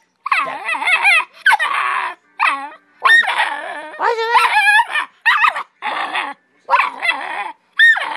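Pit bull puppy 'arguing' back: a run of about ten short, yappy barks and whiny grumbles, each bending up and down in pitch.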